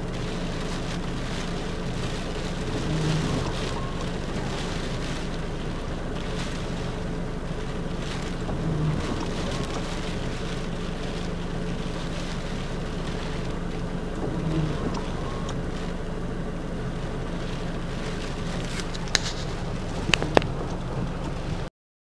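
A vehicle's engine idling steadily, heard from inside the cabin, under a constant haze of typhoon wind and rain noise. A brief swell comes about every six seconds, and a few sharp clicks sound near the end.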